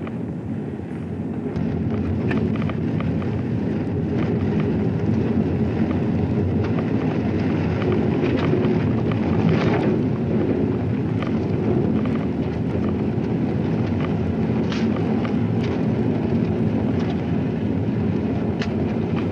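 A steady, loud low rumble with faint scattered crackles over it.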